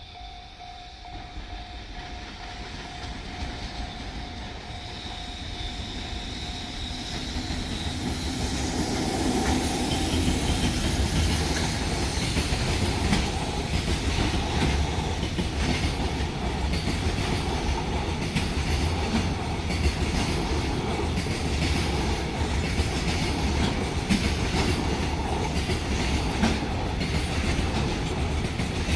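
Freight train of an EF65 electric locomotive and Koki container wagons approaching and passing close by at a level crossing. It grows louder over the first ten seconds, then holds as a steady rumble of wheels with rhythmic clickety-clack as the wagons pass. A crossing warning bell rings at the start and fades under the train.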